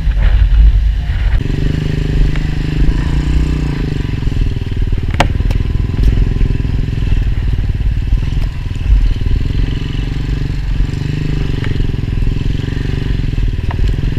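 Royal Enfield 350 single-cylinder motorcycle engine running steadily under load as the bike is ridden through a shallow, stony stream crossing, with a few sharp clicks.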